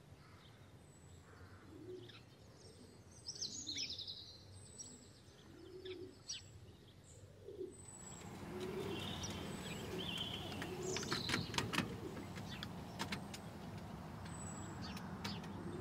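Wild birds chirping and calling, short high chirps over repeated lower calls. About halfway through a steady background noise rises, and several sharp clicks follow.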